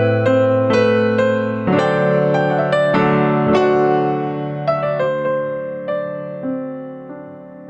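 Background music: a slow, gentle piano piece, notes struck about every half second and fading away near the end.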